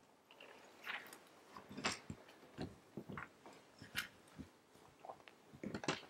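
Faint, irregular rustles and light clicks, about a dozen spread over several seconds: people handling paper sheets and shifting about.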